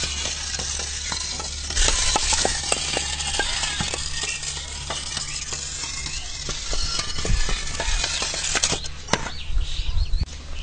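Clay bricks stood on end toppling one after another like dominoes: a rapid, irregular run of dry clacks as each brick knocks over the next, over a steady hiss.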